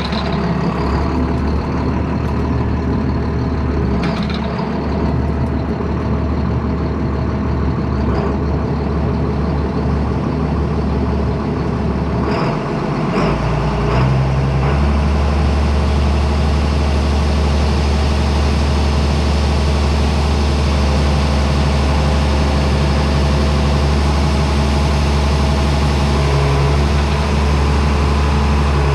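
John Deere 7800 tractor's diesel engine running steadily; about halfway through its note shifts and it gets a little louder, then holds steady.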